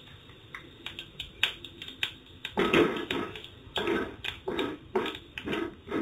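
Mustard, cumin and fenugreek seeds crackling and popping irregularly as they splutter in hot ghee in a kadai. From about two and a half seconds in, a wooden spatula stirring the seeds adds louder clusters of sound.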